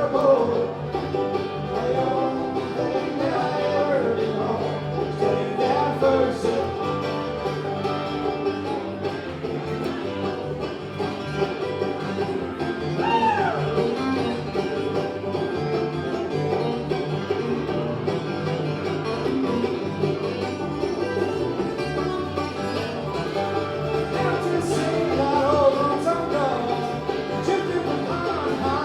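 Acoustic bluegrass band playing live, with banjo and guitar picking.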